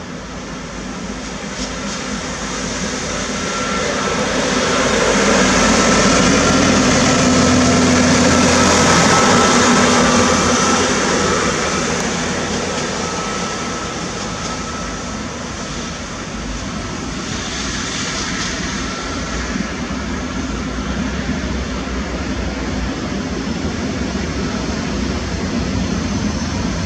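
Self-propelled DP-560 rail diagnostic vehicle running along the tracks, its engine noise carrying a steady whine over a low hum. It grows loudest about six to ten seconds in as the vehicle passes, then eases off as it moves away.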